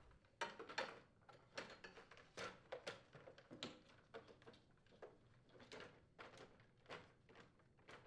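Faint, irregular clicks and light knocks of a plastic snowblower control housing being handled and fitted back into its console.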